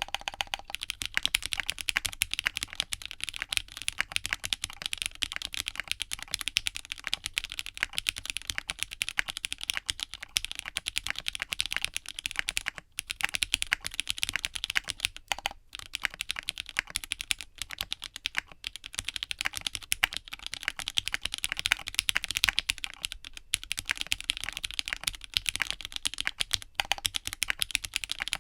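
Steady, fast typing on a 60% mechanical keyboard with Gateron Pro Yellow linear switches in a walnut case, gummy o-ring mounted on silicone cord stock with sorbothane blocks under the PCB. There are a few brief pauses in the stream of keystrokes.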